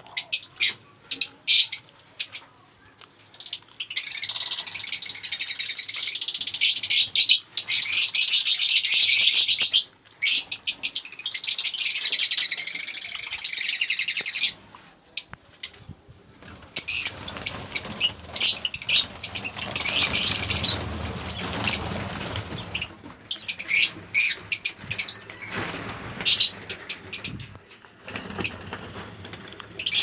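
A colony of lovebirds chattering with shrill, high chirps, in places merging into a dense, continuous chatter, with wing flaps as birds fly about the aviary.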